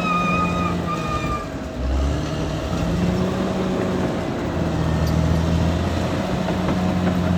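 Caterpillar D6R XL bulldozer's diesel engine running, its low note rising and falling with the load. A high, steady squeal sounds over it for the first second and a half.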